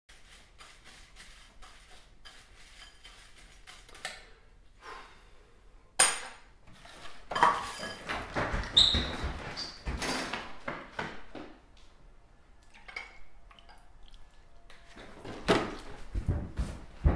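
Clatter and knocks of a cereal bowl, spoon and plastic milk jug on a granite countertop, with a sharp bang about six seconds in, a busier stretch of clatter and rustle a couple of seconds later, and more knocks near the end.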